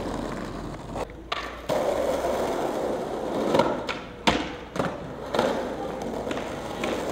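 Skateboard wheels rolling on hard pavement, broken by several sharp clacks of the board striking the ground, the loudest a little past the middle.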